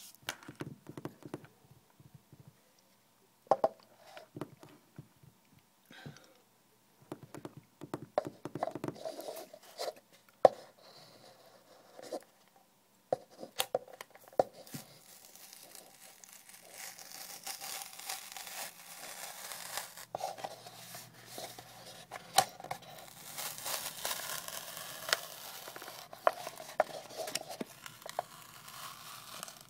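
A disposable paper cup handled on a hard table: scattered taps and knocks for the first half, then the paper of the cup being torn and crinkled, a steadier crackling with many sharp clicks.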